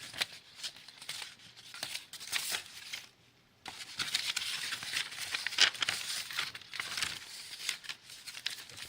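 Packaging being torn open and crinkled by hand, a busy run of rustling and tearing with a short pause a little after three seconds in.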